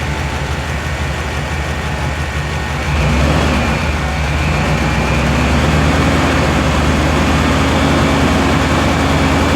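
A 5.7-litre Vortec V8 running at a fast idle of just over 1,000 rpm while its distributor is turned to set the cam retard to zero. It grows louder about three seconds in, then holds steady.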